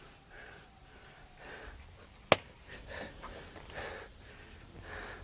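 Tie-down belly straps being handled at the front of a cartopped canoe: soft rustling and breathing, with one sharp click a little over two seconds in.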